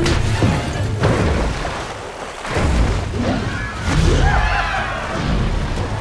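Cartoon soundtrack: dramatic music mixed with heavy booms and crashes, the loudest about two-thirds of the way through, as sound effects for a giant meatball plunging over a waterfall.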